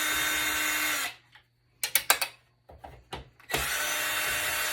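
Power screwdriver spinning screws out of the back of a Dell desktop case. It runs in two steady bursts, one stopping about a second in and another starting about three and a half seconds in, with a few metallic clicks and clatters in between.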